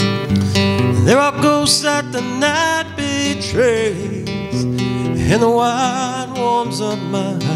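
Acoustic guitar strummed steadily while a man sings two long notes, each sliding up into a held, wavering tone, about a second in and again past the five-second mark.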